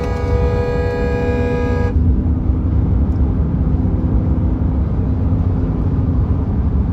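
Steady low rumble of a car driving on the road, heard from inside. A sustained tone with many overtones, carried over from before, cuts off about two seconds in.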